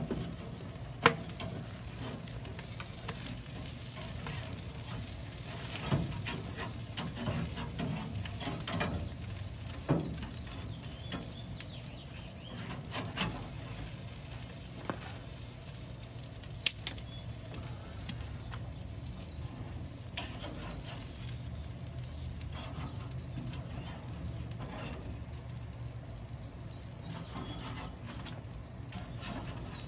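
Meat sizzling in a wood-fired smoker: a steady hiss with a few sharp crackles and clicks scattered through it.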